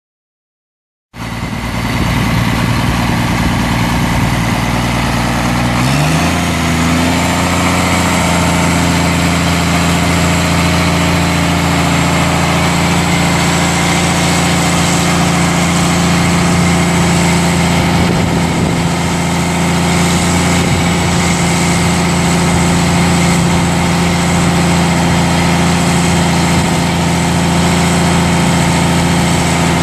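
Cummins M11 turbo diesel of a 1996 Volvo WG roll-off truck running steadily. About six seconds in it steps up to a slightly higher speed and holds there while the PTO-driven hydraulics raise the roll-off bed.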